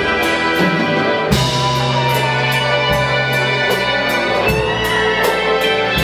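Live rock band playing: two electric guitars, electric bass and a drum kit, with cymbals struck on a steady beat. No singing.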